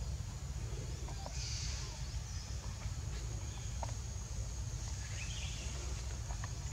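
Outdoor woodland ambience: a steady low rumble with a faint hiss, and a few brief, faint bird chirps and soft clicks.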